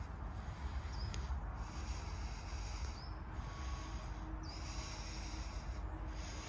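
Outdoor ambience: a steady low rumble and hiss, with a few short high chirps spaced a second or more apart.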